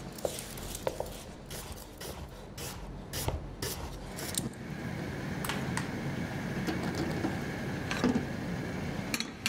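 Quick, irregular knife strokes through white asparagus on a cutting board, then from about five seconds in the steady hiss of a gas stove burner flame with a faint high tone.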